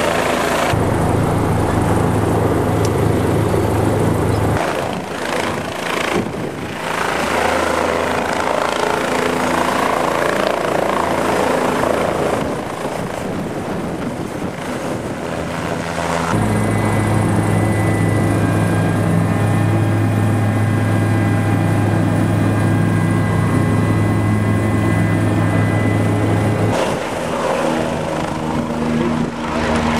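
Tour helicopter running on and over the helipad, its turning rotor giving a steady low beat, with a steady high whine in the middle stretch. Lifting off and flying away, with the sound changing abruptly several times between shots.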